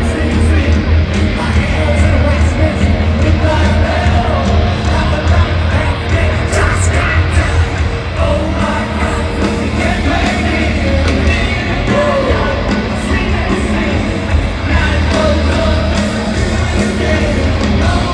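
Live hard rock band playing loud, with electric guitars and a singer's voice over a heavy low end.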